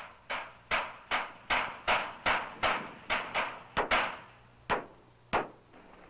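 Hammer blows driving nails into wooden boards, about two to three strikes a second, each with a short ring, stopping near the end.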